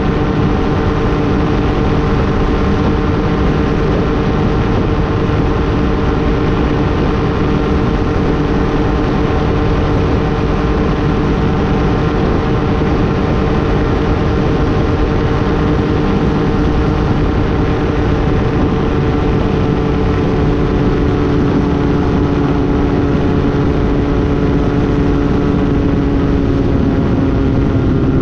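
Hawk ultralight aircraft's engine and propeller running steadily in flight under a heavy rush of wind noise. The pitch eases slightly lower in the last several seconds.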